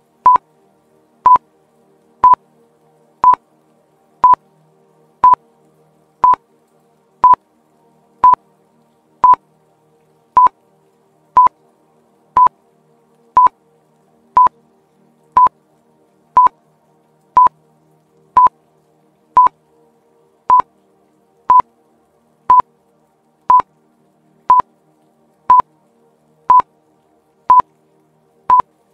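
Quiz countdown timer beeping once a second, a short high electronic beep at the same pitch each time, about thirty in a row as the clock runs down from 30.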